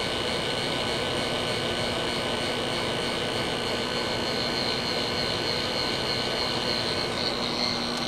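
Microwave oven running at power level 9, its magnetron on continuously: a steady hum with a high whine.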